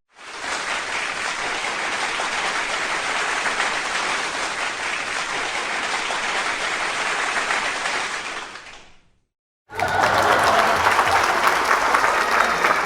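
Applause sound effect: a crowd clapping steadily, fading in and then out over about nine seconds. After a short gap, a second crowd recording with voices in it starts near the end.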